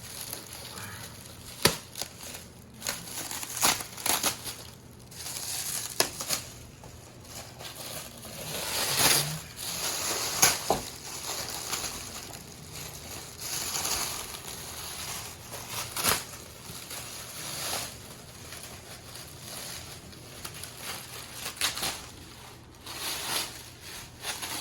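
Packaging wrap being crinkled and pulled off by hand in irregular rustling bursts, with a few sharp snaps.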